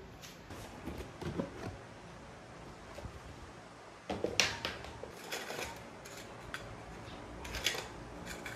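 Light clicks and clatters of pin badges knocking against each other and against a clear plastic compartment box as they are handled, with a sharper click about four and a half seconds in.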